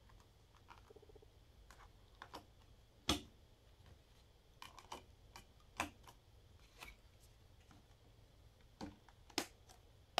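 Sharp, scattered clicks and taps from handling a metal Blu-ray SteelBook case: the discs pressed onto the plastic hubs and the case closed, with three louder clacks among the lighter ticks.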